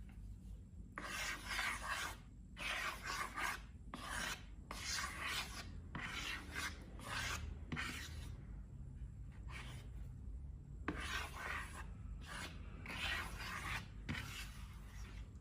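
A series of short rubbing, rasping strokes, each under a second with brief pauses between, about a dozen in all, from slime-making handling.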